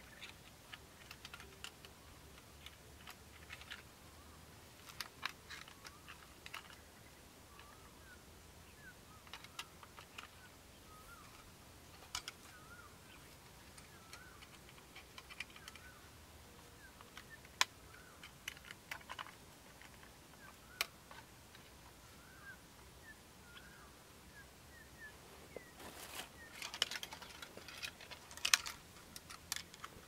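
Scattered small metal clicks and scrapes of a wire spring trap on a wooden base being handled and set in grass, with a couple of sharper snaps midway and a busy stretch of clicking and rustling near the end. Faint high chirps sound in the background.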